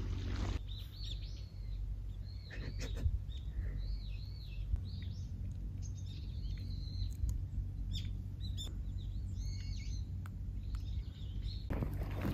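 Small birds chirping, many short arched calls in quick, irregular succession, over a low steady rumble.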